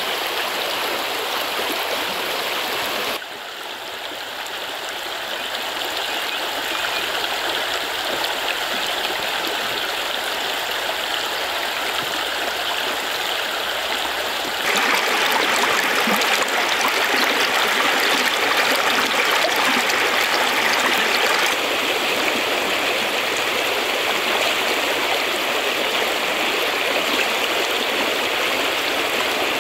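Shallow, fast stream running over stones and rocks, a steady rush of water. It dips in level about three seconds in and grows louder about halfway through.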